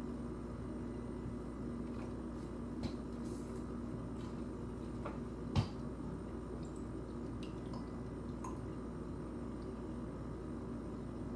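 Steady low hum of indoor room noise, with a few faint clicks and one short knock about halfway through.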